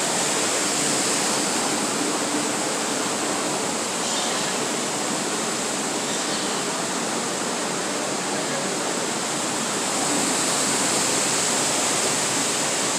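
Steady rushing of falling water, an even hiss without any change or pause.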